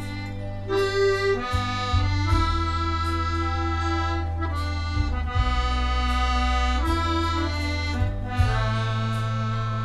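Piano accordion playing a slow melody of long held notes on the treble keyboard, over sustained bass notes and chords from the left-hand buttons that change every second or two.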